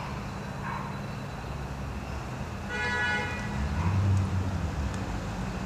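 A car horn honks once, briefly, about three seconds in, over a steady low rumble of traffic, followed by a deep low boom.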